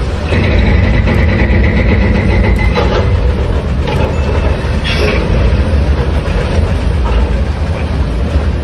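Loud, steady low rumble of heavy machinery running, with a faint high whine for the first few seconds and a few short clanks.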